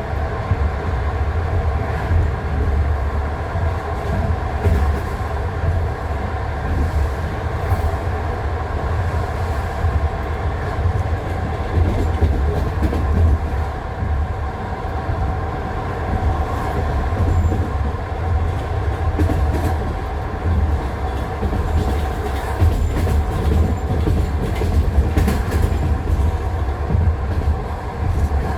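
Passenger train wheels knocking over rail joints on jointed (non-welded) track, heard from inside the carriage over a steady low rumble of the running gear.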